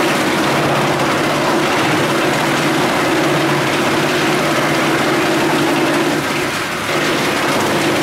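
Teknamotor 350 EB wood chipper running with its conveyor, a steady machine hum under a dense rattle of wood chips pouring down the belt into the hopper. The level dips briefly about six seconds in.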